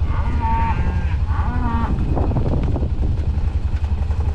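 Black cattle mooing, with two calls in the first two seconds, over a steady low rumble.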